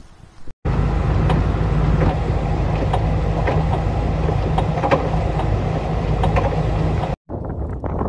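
Blizzard wind blowing hard: a loud, steady low rumble with hiss and scattered ticks. It cuts off abruptly about seven seconds in, giving way to quieter gusting wind.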